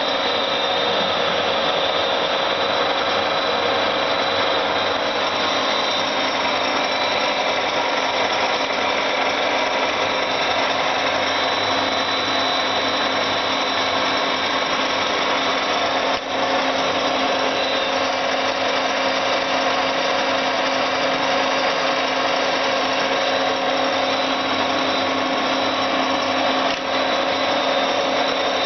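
Cincinnati 205-12 MI universal milling machine running under power: a steady mechanical whir with a constant gear whine from its drive. It breaks off for an instant twice, about two-thirds of the way in and near the end.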